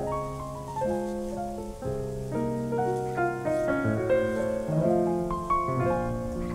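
Background music: a melody of piano notes played one after another, with chords beneath.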